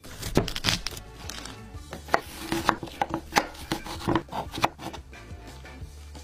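A kitchen knife chopping through fruit onto a wooden cutting board: a quick, irregular series of sharp knocks, thinning out after about five seconds, over background music.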